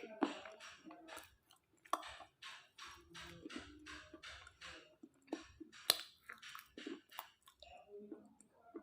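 Close-up chewing of crunchy slate pieces: a run of crisp crunches at about three a second, with a sharper, louder crack about six seconds in as a piece breaks.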